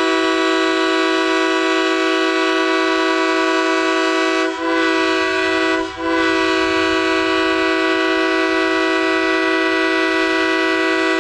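Goal horn blowing one long, steady, loud blast, broken by two short dips about four and a half and six seconds in.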